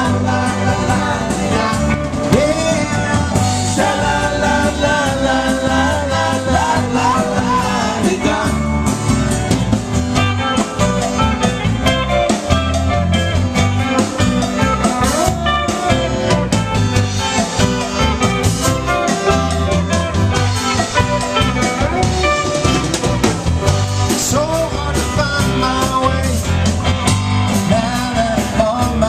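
Live band music: acoustic guitars strummed with a man singing into a microphone, at a steady beat.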